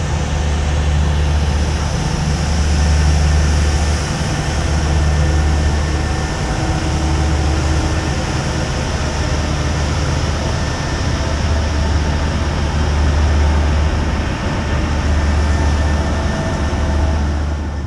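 A steady, low engine drone that swells and eases about every two seconds, over a hiss of noise.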